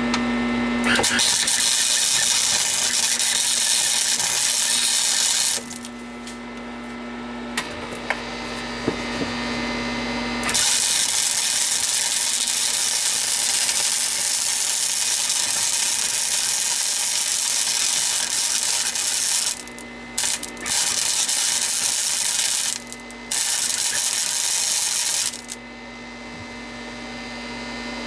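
MIG welding arc crackling in long runs of several seconds, stopping and restarting several times, with the welder's steady hum in the pauses. The weld is being built up into a ring around a hole in a sheet-steel shock tower plate.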